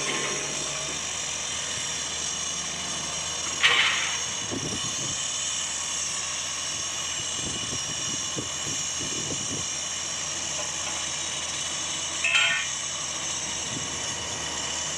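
A pile-driving rig's engine runs steadily. Two loud metallic clangs ring out, one a few seconds in and one near the end, with softer knocks between them.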